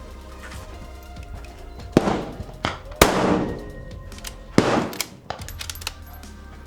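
Background music with several sharp rifle shots over it, irregularly spaced, each ringing out briefly; the loudest is about three seconds in.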